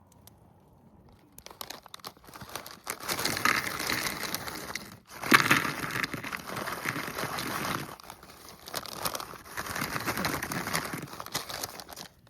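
Strong wind gusting in waves, buffeting the camp gear with a dense crinkling, flapping rattle. The gusts come in about a second and a half in, drop away briefly around five seconds, and die down just before the end.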